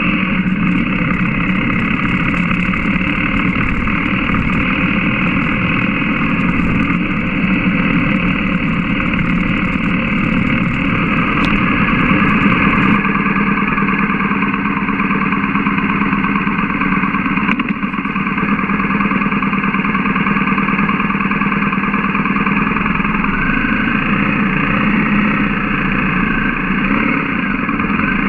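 BMW GS boxer-twin motorcycle engine heard from the bike, first running on the road with a hiss of wind rush, then idling in neutral once the hiss stops about halfway. A single knock comes a few seconds after that.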